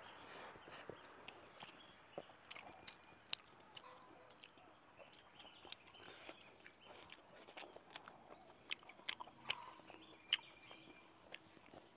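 A person chewing food with the mouth closed, picked up close by a clip-on microphone: faint, irregular small clicks and soft chewing sounds.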